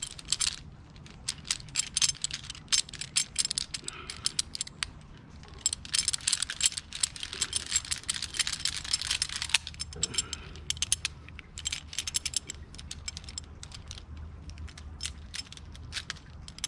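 Metal tree-climbing hardware, a Zigzag mechanical prusik and carabiners on the climbing rope, clicking and jangling as the climber works up the rope. The rattling is densest from about six to nine and a half seconds in.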